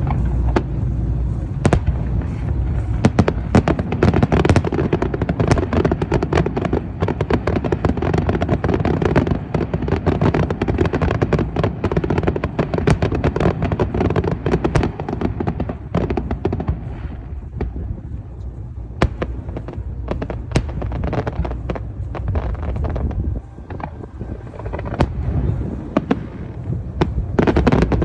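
Fireworks going off in a dense volley of bangs and crackles over a low rumble, thinning out past the halfway point and building again near the end.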